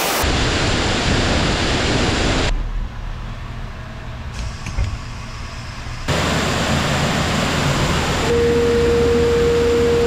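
Workshop compressed-air and machinery noise: a steady rushing hiss over a low hum. It drops much quieter for a few seconds in the middle, and a steady whistling tone joins about two seconds before the end.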